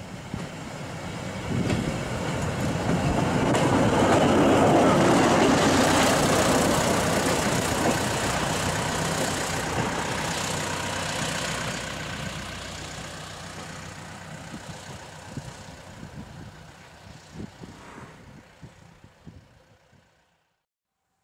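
Klv 51 rail motor trolley's diesel engine running as it passes and drives off along the track. It is loudest about five seconds in, then fades steadily and cuts off near the end.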